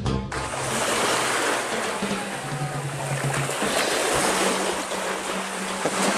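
Steady rush of small waves washing onto a beach, with a faint low steady hum underneath.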